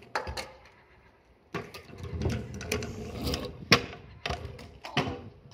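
Kick scooter rolling on pavement, a rumble starting about a second and a half in, with several sharp clacks of the scooter hitting the ground, the loudest about midway.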